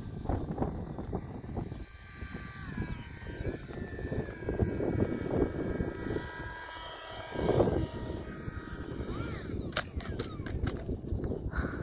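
Radio-controlled delta-wing model airplane's motor and pusher propeller whining, the pitch stepping down a few seconds in as the throttle is cut back for landing. Near the end a brief rise and fall in pitch, then a few sharp clicks as the model touches down on asphalt.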